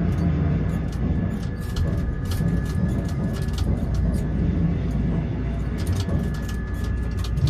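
Sound inside a tower crane's operator cab in strong wind: a steady low rumble with frequent short clicks and rattles.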